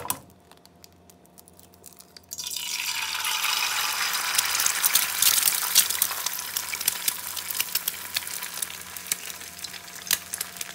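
An egg dropped into hot oil in a non-stick frying pan, sizzling and crackling with many small pops. The sizzle starts suddenly about two seconds in and slowly dies down, over a faint steady hum.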